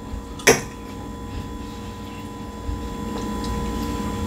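Close-miked chewing of a mouthful of baked macaroni and cheese, soft and low over a steady background hum, with one sharp click about half a second in.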